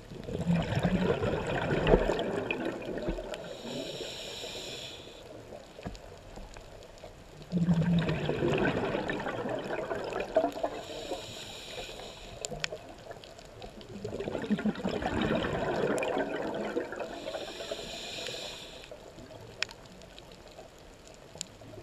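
Scuba diver breathing through a regulator underwater: three slow breath cycles about seven seconds apart, each a burst of exhaled bubbles followed by a shorter hiss of inhalation.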